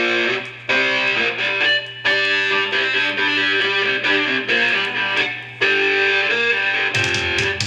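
Instrumental passage of a song: guitar playing phrases of notes with short gaps, and a heavier beat coming in about seven seconds in.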